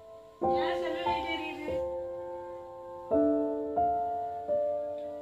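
Background music: slow piano notes, each struck and left to ring, with a quick run of higher notes about half a second in.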